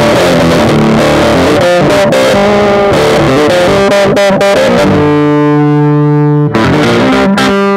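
Electric guitar fitted with Dialtone pickups, played through an amplifier with distortion: fast riffing, then a held note rings out about five seconds in and is struck again near the end.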